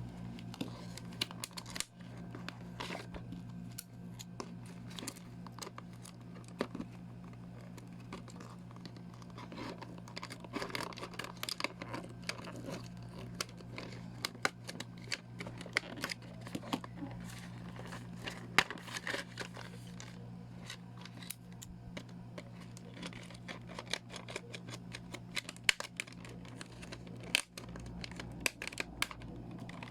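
Toy packaging being opened and handled: plastic and cardboard crinkling and tearing, with many small irregular clicks and snaps. A steady low hum runs underneath.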